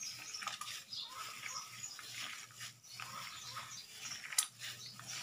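A plastic-gloved hand squishing and kneading sliced raw rabbit meat in a wet marinade, making irregular wet squelching and crinkling. A single sharp click comes about four seconds in.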